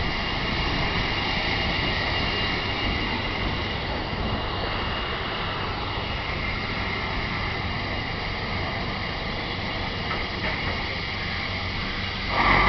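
A steam-hauled heritage train running slowly with a steady rumble, heard from a carriage close behind the locomotive. A short louder burst comes near the end.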